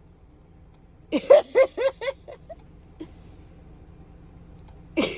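A woman laughing: a run of about six short ha-ha notes about a second in, fading out, and another run starting near the end.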